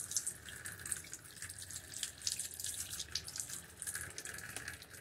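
Tap water running and splashing over an aloe vera leaf and hands as the leaf is rinsed of soil, with an uneven spattering that changes as the leaf is turned under the stream. The flow stops right at the end.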